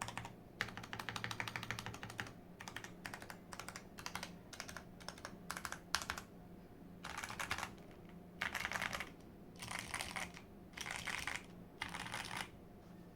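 Typing on a modded Imperion Trooper 7 TKL mechanical keyboard with lubed Outemu Box brown tactile switches, a tape- and foam-modded PCB and PBT Cherry-profile keycaps. A fast run of keystrokes comes first, then scattered single keys with one sharper clack about six seconds in, then five short bursts of rapid typing with pauses between them.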